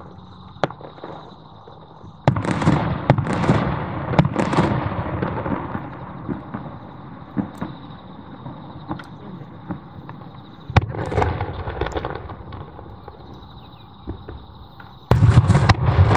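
Japanese aerial firework shells bursting: three sudden loud booms, about two seconds in, around eleven seconds in and about a second before the end. Each boom is followed by a long rolling rumble, with sharp single reports in between.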